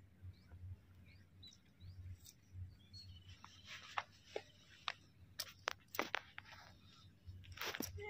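Small curved knife scraping and paring the horn of a sheep's hoof: faint scrapes and crunching cuts with scattered sharp clicks, busier in the second half. The knife is not cutting well.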